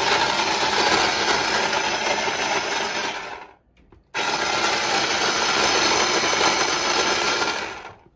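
Small electric mini food chopper running, blending mango and pineapple pieces for a smoothie. It runs in two pulses of about three to four seconds each, with a short stop between them. Each pulse winds down as it is released.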